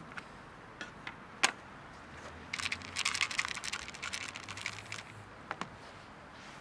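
Dry cat food kibble rattling in a plastic tub as it is handled: a few single clicks, then a dense run of rattling clicks for about two and a half seconds, and two last clicks near the end.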